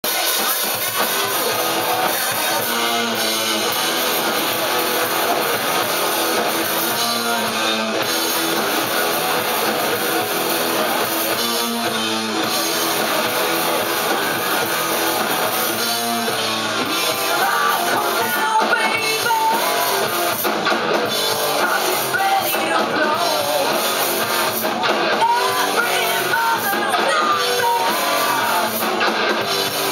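Live rock band playing loud: electric guitars, bass and drum kit, with a lead vocal coming in over them in the second half.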